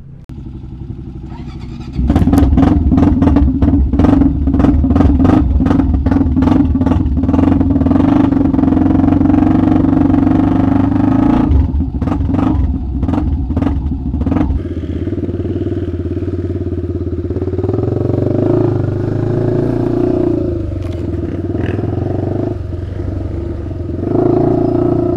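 Honda TRX400EX sport quad's single-cylinder four-stroke engine. About two seconds in, it comes in loud, running with many sharp cracks; from about halfway on, it rises and falls in revs as the quad is ridden.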